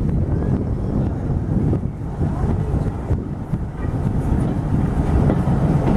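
Steady low rumbling noise, typical of wind buffeting the microphone outdoors, with faint short chirps now and then.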